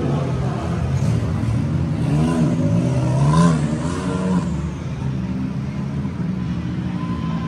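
A vehicle engine revving, its pitch rising and falling a few times in the middle and loudest about three and a half seconds in, then running steadier.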